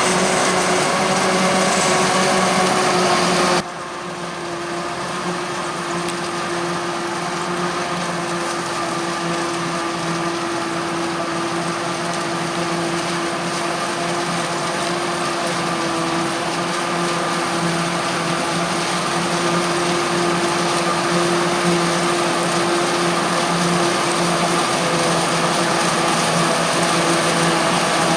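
Heavy diesel farm machinery running steadily, a constant drone with a hum under it. A few seconds in the sound drops suddenly to a lower level and then slowly grows louder again.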